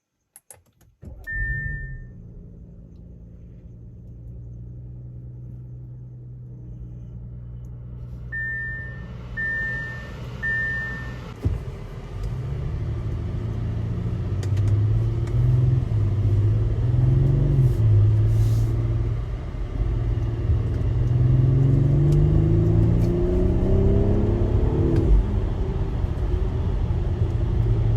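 Car engine running, with a short chime beeping once and then three times about a second apart. The car then drives off, the engine pitch rising and falling as it accelerates through the gears.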